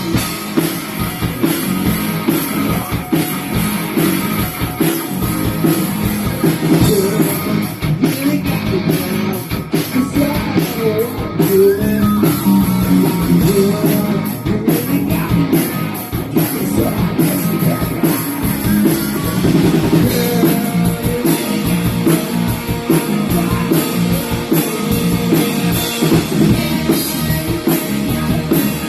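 A rock band playing live in rehearsal: electric guitar and drum kit, with a singer.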